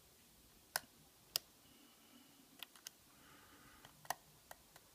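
Faint, sharp clicks of a lock pick working the pins of a five-pin CISA padlock core under tension, about eight clicks spaced irregularly, as the pins are being set again.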